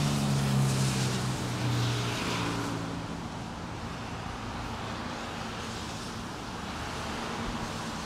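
A vehicle's engine hum on a wet street, fading out over the first two to three seconds, over a steady hiss of rain and wet-road traffic.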